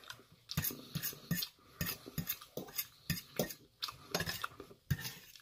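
Metal fork scraping and clinking against a metal bowl as fried rice is stirred and scooped, a run of short, irregular scrapes and taps.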